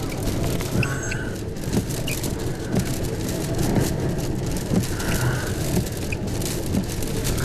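Rain hitting a car, many sharp drop ticks over a steady hiss, with the car's engine and road noise rumbling underneath.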